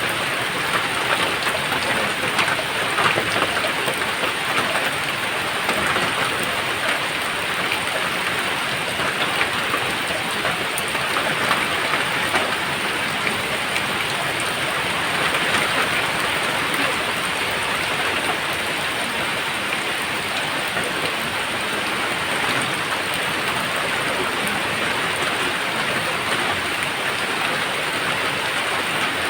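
Steady rain falling on a surface, an even hiss dense with the patter of individual drops.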